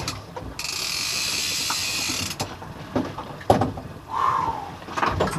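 Big-game trolling reel's drag paying out line in a steady high buzz for nearly two seconds as a fish takes line off it, followed by a few sharp knocks.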